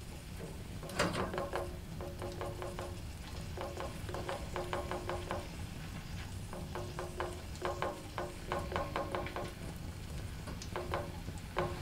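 Wet squelching of raw minced meat kneaded and squeezed by hand in a bowl, in quick runs of squishes broken by short pauses, with a sharper squelch about a second in.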